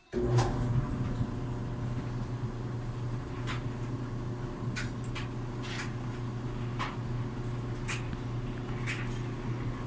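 Samsung DV45H700EW clothes dryer running: a steady motor-and-drum hum with light ticks about once a second.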